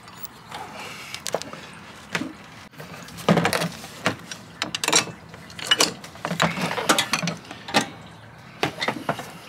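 Irregular metallic clanks and knocks of a wrench and tools worked against the radiator fan clutch nut in the engine bay, loosening the fan.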